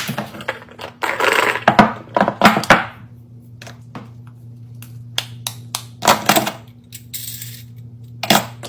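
Small hard objects being handled: a run of sharp clicks and taps, with a stretch of rustling about a second in, over a steady low hum.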